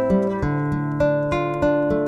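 Classical nylon-string guitar fingerpicked: an arpeggiated pattern of single plucked notes, about three a second, ringing over held bass notes.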